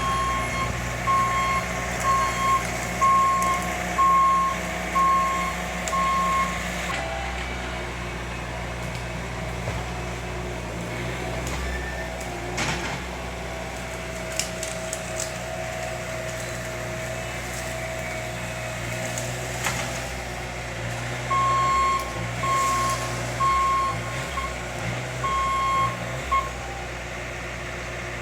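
A heavy vehicle's engine running, its reversing alarm beeping about once a second for the first six seconds or so, then falling silent and starting again for about five seconds in the second half. A couple of sharp knocks sound in the quiet stretch.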